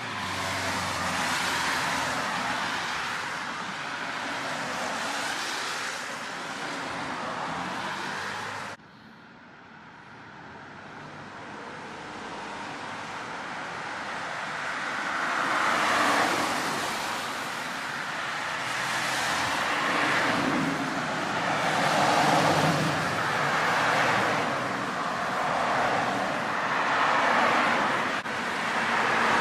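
Cars passing one after another on a rain-wet road, their tyres hissing in swells that build and fade every few seconds. The sound drops off suddenly about a third of the way in, then the traffic builds again.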